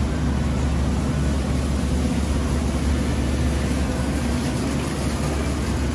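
Steady low hum and rushing air of a walk-in meat cooler's refrigeration units, running continuously.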